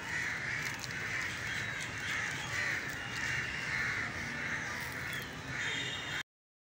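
Crows cawing over and over, about two harsh caws a second, until the sound cuts off suddenly near the end.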